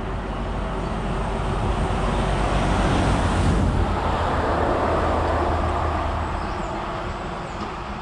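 Road traffic passing beneath a footbridge: a vehicle drives by underneath. Its rushing noise swells to a peak about halfway through and then fades.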